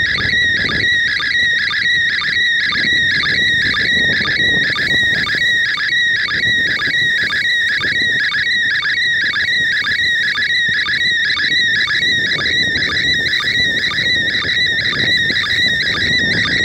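Slow-scan TV (SSTV) image signal from the International Space Station, played through a handheld radio's speaker. It is a steady warbling tone around 2 kHz that repeats about twice a second, line after line of a picture being sent, over a light hiss.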